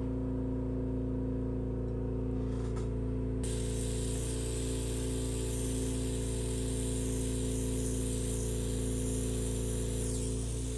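A steady buzzing hum, joined about three and a half seconds in by the steady hiss of a small oxy-fuel torch flame heating a brass joint for silver soldering.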